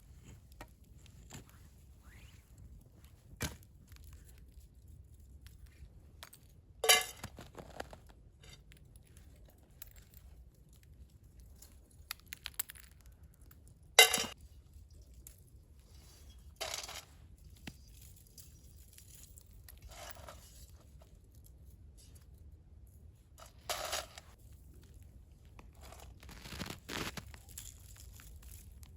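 Separate crunching and tearing sounds several seconds apart, each brief and sudden, the loudest about a quarter and halfway through, with quiet between them.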